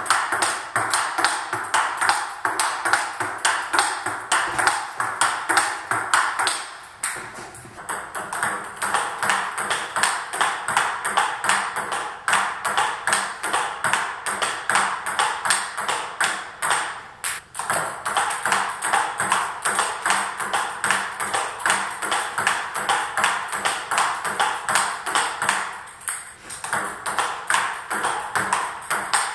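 Table tennis ball clicking back and forth in a fast, continuous rally, paddle hits and bounces on a Butterfly table coming about four a second. The rally breaks off briefly about a quarter of the way in, a little past halfway, and near the end, then picks up again.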